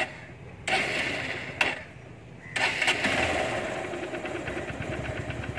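Honda Shine's 125 cc single-cylinder four-stroke engine being started on choke. It turns over in two short bursts, then catches about two and a half seconds in and runs on at a steady idle.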